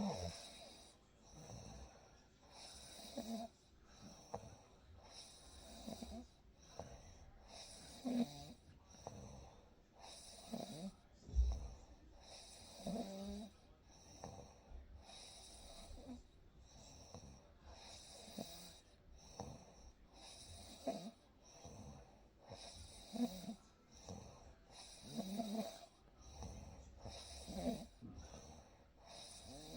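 A sleeping person snoring: a short low rasp on each breath, roughly every two and a half seconds, with an airy breathing hiss between them. A single low thump about eleven seconds in.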